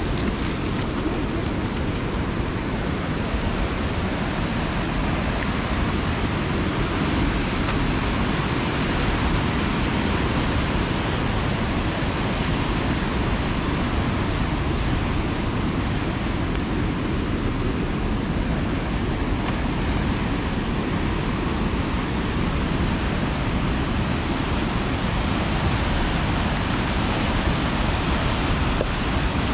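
Steady rushing of the Big Almaty River's fast water running through its concrete channel, a constant hiss with no breaks.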